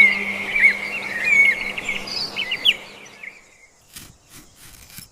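Small birds chirping in quick, short tweets that fade out about three seconds in, followed by a couple of faint clicks.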